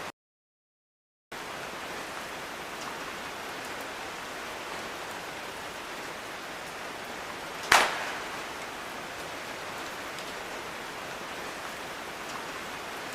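Rain sound effect: a steady hiss of falling rain that drops out completely for about a second at the start, with one sharp, loud hit about eight seconds in.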